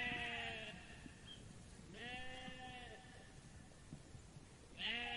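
Sheep bleating, three bleats in turn: one at the start, a second about two seconds in, and a third beginning near the end.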